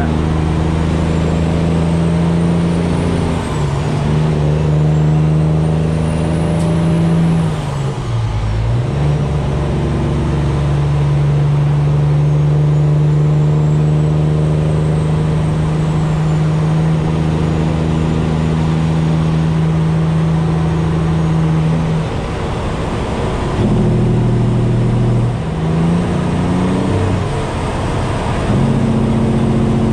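Peterbilt 389's straight-piped diesel engine running under load, heard inside the cab. The engine note steps down briefly about eight seconds in and changes again in the last third with a few rising sweeps, as gears are changed. A faint high whistle rises and falls above it.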